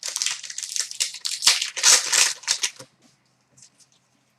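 Foil trading-card pack wrapper being torn open and crinkled, a dense crackling rustle for about three seconds, then a few faint clicks of cards being handled.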